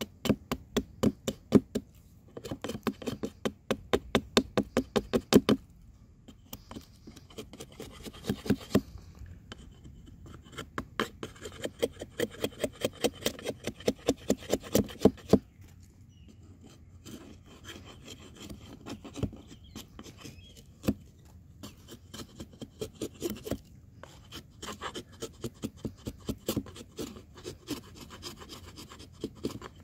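Husqvarna hatchet blade shaving a wooden stick, carving a spoon: quick rasping strokes about four or five a second, in runs broken by short pauses.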